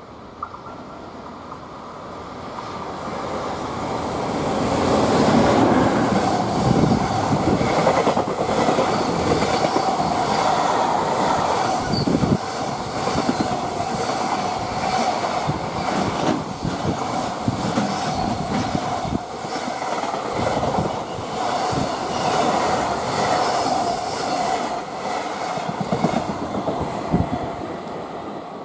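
EF210 electric locomotive hauling a container freight train past at close range. It builds over the first few seconds as the locomotive arrives, then a long run of container wagons goes by with rhythmic clacking of wheels over rail joints and a steady squeal from the wheels on the curve. It fades near the end as the last wagon passes.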